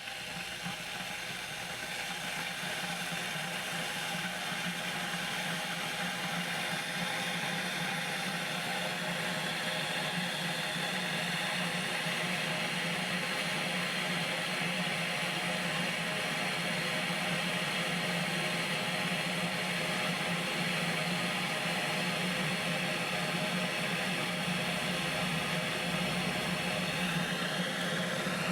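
Electric kettle heating water: a steady hissing rumble with a low hum, growing gradually louder over the first several seconds and then holding steady.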